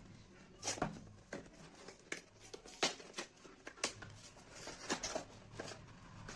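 A delivery package being opened by hand: irregular rustles, tearing and sharp clicks of packaging.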